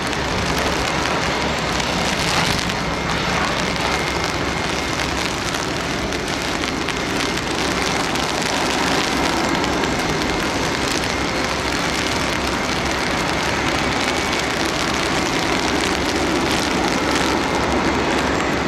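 Steady, even rushing hiss with a faint high whine running through it: jet engine noise around a Boeing 747-400 during pushback on a wet apron.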